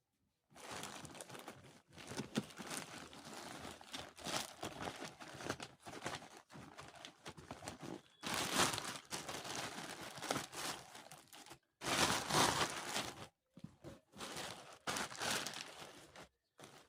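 Delivery packaging being crinkled, handled and torn open by hand, in irregular rustling bursts with two louder stretches in the second half.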